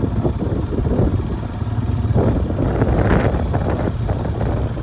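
Blizzard wind buffeting the microphone over a steady low engine rumble, with a stronger gust about two seconds in.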